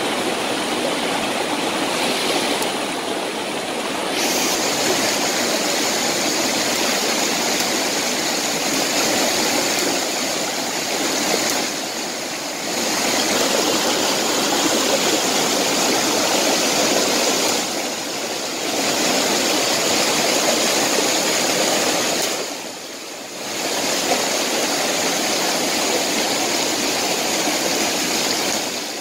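Rocky stream rushing over rocks: a steady, loud rush of white water, briefly dipping a few times.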